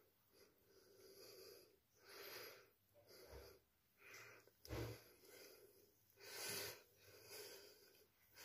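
Faint breathing close to the microphone: soft breaths every second or so, a couple of them stronger about halfway through.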